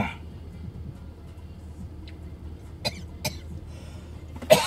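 A person coughs loudly near the end, after two short sharp sounds about three seconds in, over a steady low hum in a pickup truck's cab.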